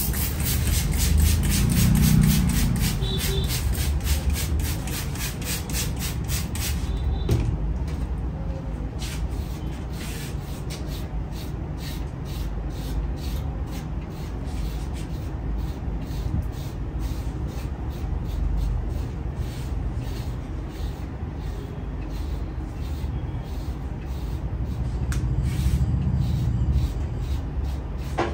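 Barber's hands working over a head and neck in a massage: a long run of quick, even taps, loudest and closest together in the first several seconds, then lighter. A steady low rumble lies underneath.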